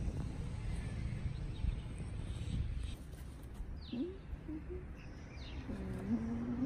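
Baby macaque calling: a few short, bending coos about four seconds in and a longer held call near the end. Low rumbling noise fills the first few seconds.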